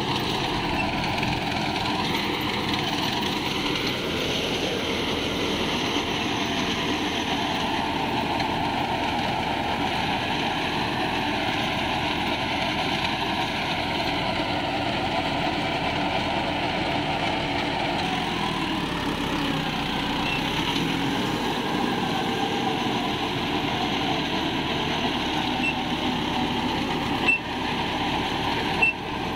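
Mahindra Arjun 605 tractor's diesel engine running steadily under load as it drives a super seeder, whose rotary tiller chops paddy stubble and works the soil.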